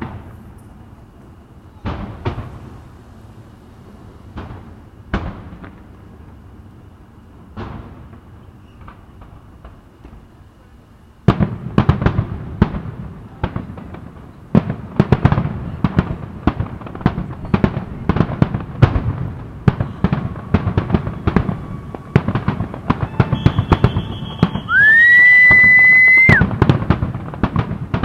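Aerial fireworks display: scattered booms for about the first ten seconds, then a dense barrage of rapid bangs and crackles. Near the end a loud whistle rises and holds for about two seconds.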